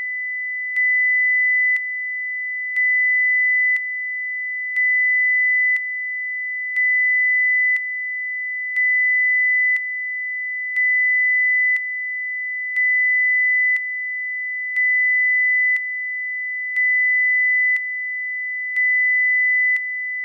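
A steady 2 kHz sine test tone that jumps abruptly between two levels, -6 and -12 dB FS, about once a second. Each sudden level change makes a brief click, the sign of an unnaturally fast slew rate from the instant amplitude step.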